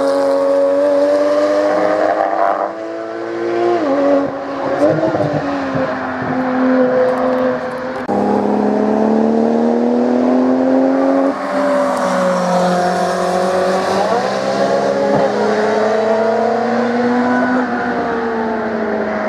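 Sports car engines passing at speed on a race track, their notes rising and falling as they accelerate and lift, with sudden changes in pitch where one pass gives way to the next. Among them are a Porsche 911 with a rear wing and a Ferrari 458 Spider.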